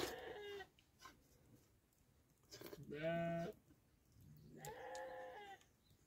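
Sheep bleating three times: a short call at the start, a louder one about three seconds in, and a longer one near the end.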